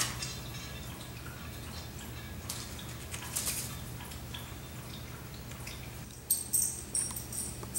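Room tone with a steady low hum, and a few light clicks and rustles starting about six seconds in.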